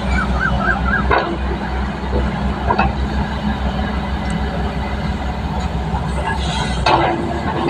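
Construction machine engine running steadily with a low rumble, with a short warbling tone in the first second and a few sharp knocks.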